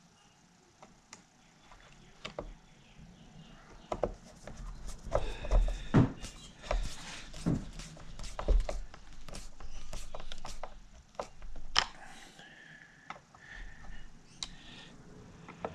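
Hands reassembling a Technics SL-1200 MK2 turntable, driving in its cover screws: irregular clicks, knocks and scrapes of screwdriver and parts against the deck, busiest and loudest from about four to twelve seconds in.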